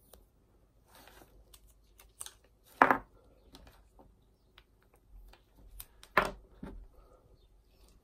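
Handling noise from in-ear earphones and their cable being turned over in a gloved hand: scattered light clicks and rustles, with two louder bumps about three seconds and six seconds in.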